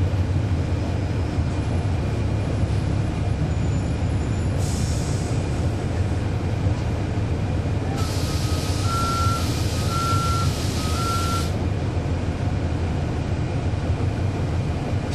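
Cummins ISL9 diesel engine of a NABI 416.15 transit bus running steadily, heard from on board as a low drone. About five seconds in there is a short burst of air hiss. From about eight seconds a longer air hiss sounds, with a warning beeper going off three times about a second apart.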